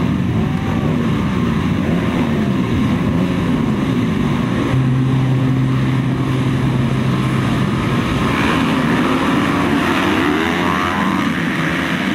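A field of motocross dirt bikes revving at the start gate, many engines rising and falling in pitch over one another, one held steady for a couple of seconds. From about two-thirds of the way in the engines rise together as the bikes launch off the line and race away.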